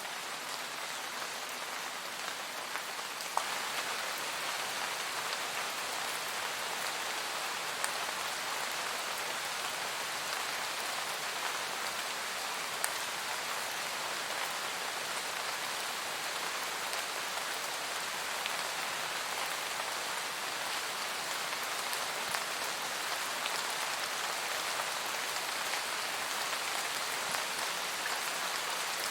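Steady rain shower, an even hiss of falling rain with occasional separate drops standing out. It gets louder and fuller about three seconds in.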